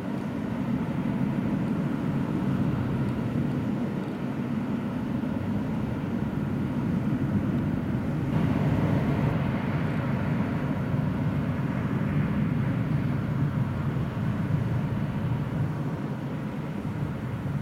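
Military jet engine rumbling steadily, with a brighter rushing hiss added about eight seconds in.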